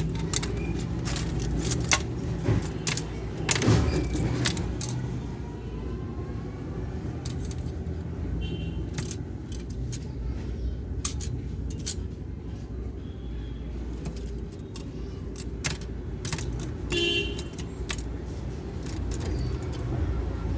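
Scattered sharp clicks and light rattling of a small toy gun and its parts being handled, over a steady low rumble of traffic. The clicks are busiest between about two and four seconds in.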